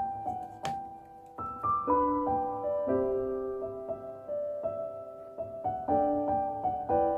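Gentle background piano music playing a slow melody of held notes, with a single sharp click under it near the start.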